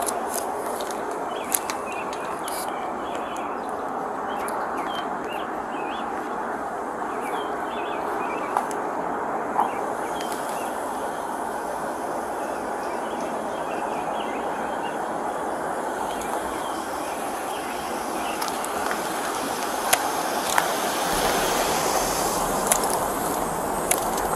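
Steady rushing background noise picked up by a police body camera's microphone, with a few short clicks and knocks from the camera being handled as the wearer moves.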